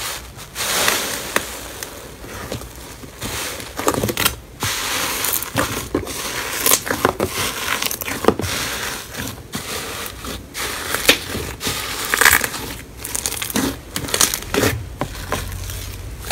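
Hand squeezing and pressing foamy, air-filled slime: a dense, irregular crackle of tiny bubbles bursting, with many sharp pops.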